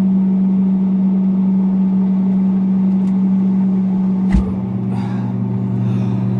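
An electric appliance motor humming steadily, with a single knock about four seconds in.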